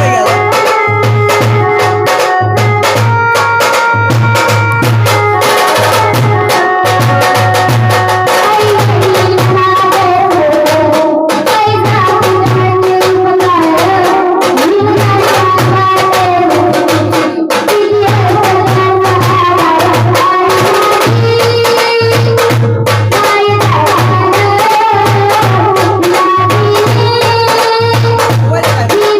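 Music with a steady drum beat and a melody line that slides in pitch, carried by a brass or reed-like instrument or a voice.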